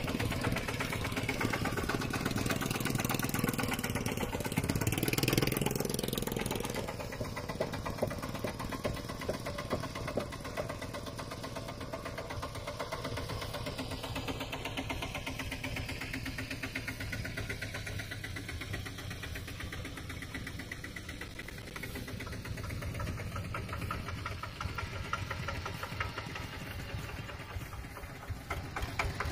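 Mini tractor engine running with a fast, even beat. It is louder and working harder for the first several seconds, then settles to a steadier, quieter run.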